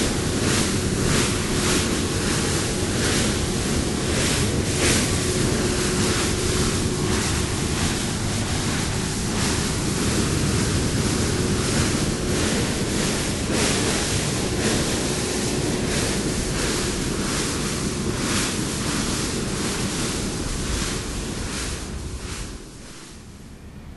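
Rushing water and wind gusting on the microphone aboard a moving car ferry, with a faint steady hum underneath. The sound drops sharply in level near the end.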